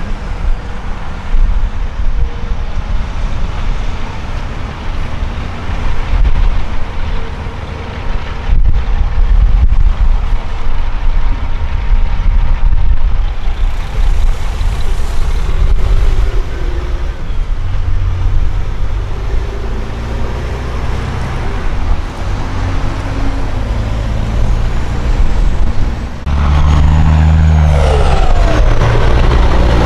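Peterbilt semi truck's diesel engine pulling a tanker trailer: a low steady run at crawling speed, then about four seconds before the end a sudden, much louder run under hard acceleration with a rising whine, the stacks blowing black smoke under the heavy load.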